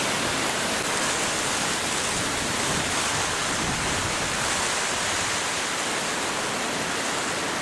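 Heavy rain falling in a steady downpour, with wind, at an even level throughout.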